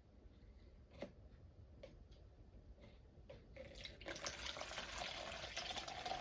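Roast-chicken pan juices being poured from the roasting pan into a container: a few light knocks of the pan at first, then from a little over halfway a steady pouring, splashing trickle that grows louder.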